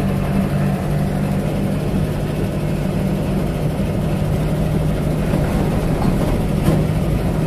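Chevrolet Opala's engine running at a steady cruise with road noise, heard from inside the cabin; a steady, even drone.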